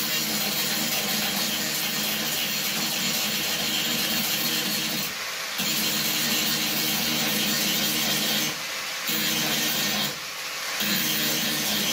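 Power grinder running against car body sheet metal, a steady rough grinding with a motor hum under it. It eases off briefly three times, about five, eight and a half, and ten seconds in.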